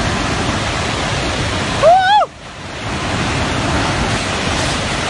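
Muddy flash-flood water rushing in a steady, heavy wash of noise. About two seconds in, a person gives a brief high shout, the loudest moment.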